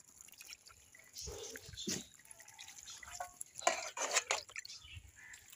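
Water poured from a bowl over a dog being bathed, splashing and dripping off its coat in a few short spells.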